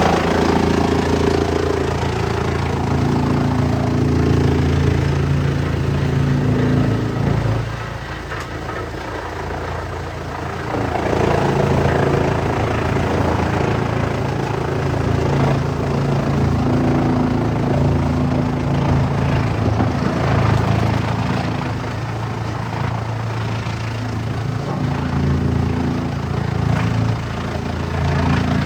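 Wood chipper's engine running steadily under work. It drops back for a few seconds about eight seconds in, then comes up louder and rougher again near eleven seconds.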